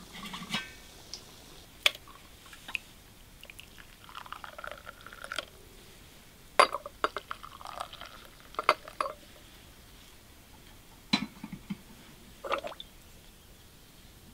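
Hot tea poured from a porcelain teapot into small glass tea glasses, among several sharp clinks of glass and china on saucers and a metal tray.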